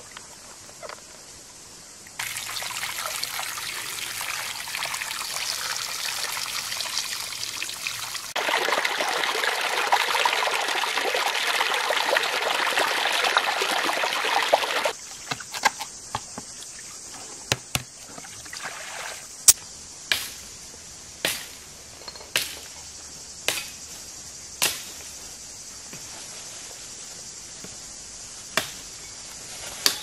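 Water pouring and splashing out of a plastic basin as figs are washed: two long pours, the second louder. After them come a series of sharp clicks, about one a second.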